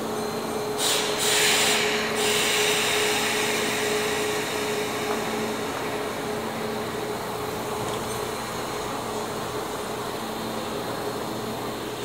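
Steady mechanical hum of a Kintetsu limited express train standing at the platform. About a second in, a loud hiss of released compressed air lasts about a second and a half, then tails off.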